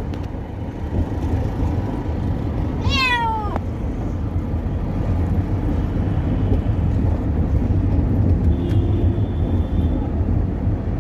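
A pet cat gives one long meow that falls in pitch, about three seconds in, over the steady low rumble of the moving vehicle it is riding in.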